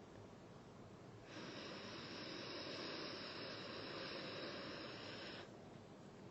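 A long, steady hissing in-breath close to the microphone, starting about a second in and lasting about four seconds, taken by the reciter in the pause between phrases of Quran recitation.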